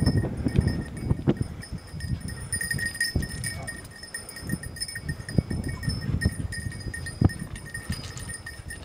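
A small bell ringing on and off with a thin, high jingle, over irregular low crunches and knocks of footsteps and brushing through stony scrub.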